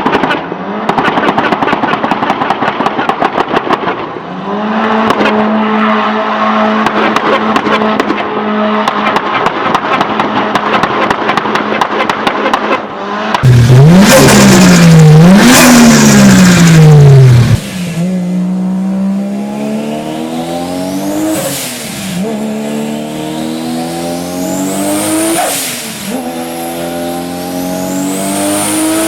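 Modified turbocharged car engines. First comes a rapid string of crackling pops over a steady engine note, then an engine is revved hard up and down several times. After that a car accelerates through the gears: the engine note climbs and drops back at each shift, with a rising turbo whistle above it.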